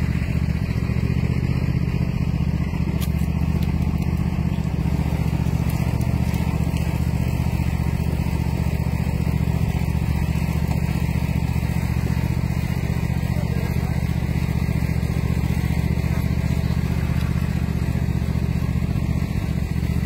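An engine running steadily at an even speed, a constant low drone that does not rise or fall, while the sugar cane mill turns.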